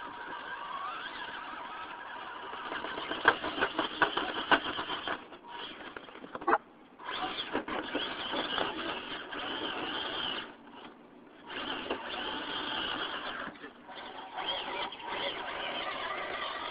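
Electric drive motor and geartrain of a Losi Night Crawler radio-control rock crawler whining as it climbs over concrete rubble. It cuts out briefly twice as the throttle is let off. There are a few sharp clicks of the chassis and tyres against the rocks about three to four and a half seconds in.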